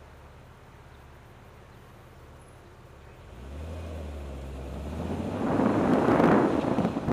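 BMW Z3 engine idling quietly at a standstill, then revving up as the car pulls away about three seconds in. As it gains speed, wind rushing over the outside-mounted microphone and road noise build into a loud steady rush.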